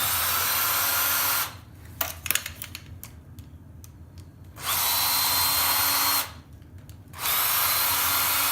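Electric screwdriver running in three bursts of about a second and a half each, backing out screws from the box, with clicks and knocks of handling in between.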